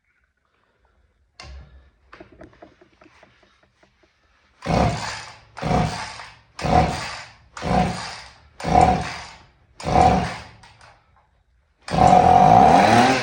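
Vintage Husqvarna 50 two-stroke chainsaw being pull-started: six pulls of the recoil starter about a second apart, then it catches and runs loudly near the end. The engine is low on compression, which the owner puts down to weak piston rings.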